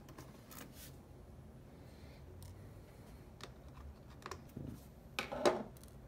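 Faint metal clicks and ticks of a pentalobe screwdriver turning screws out of a MacBook Air's aluminium bottom case, with a louder clink a little past five seconds in.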